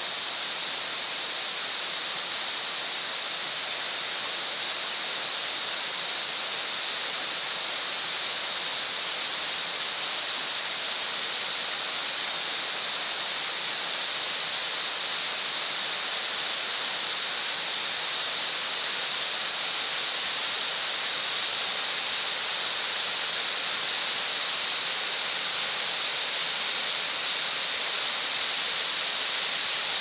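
Small rocky mountain stream rushing and splashing over boulders in a steady hiss, growing slightly louder toward the end, with a steady high-pitched ringing tone sitting over it.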